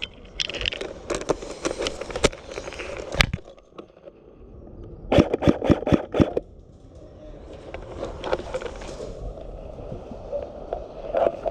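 An airsoft AUG rifle fires a quick string of about six semi-automatic shots, each a sharp snap, about five seconds in. Scattered lighter clicks and pops come before it, and a rustling follows.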